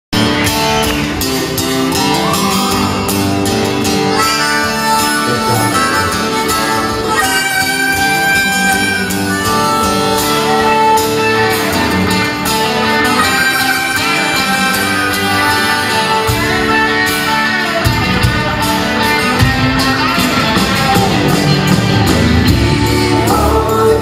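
Indie folk-rock band playing live: acoustic and electric guitars, keyboards and drums, with singing, heard from the audience in a large hall.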